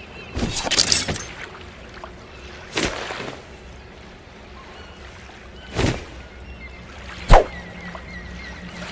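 Folding sword being flicked and swung: a quick rattling flurry of clicks near the start, two short swishes, then one sharp clack, the loudest sound, a little after seven seconds.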